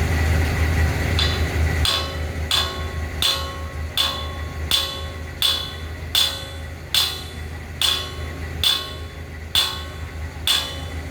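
Hammer striking steel in a steady rhythm, about thirteen ringing metallic blows, roughly one every 0.7 seconds, starting a little over a second in. Underneath runs a steady low engine hum.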